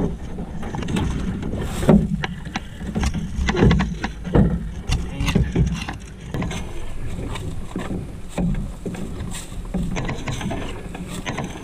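Footsteps and the knocking and rubbing of a Wenonah Prism ultralight solo canoe as it is carried along a portage trail, over a steady low rumble. The knocks come irregularly, roughly twice a second, at walking pace.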